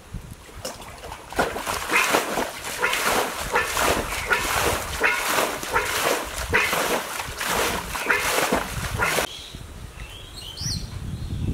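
Muddy water being bailed out of a ditch with a metal bowl: a quick, steady run of splashes, about two a second, as each bowlful is scooped and flung onto the bank. The splashing stops about nine seconds in, and a bird chirps briefly near the end.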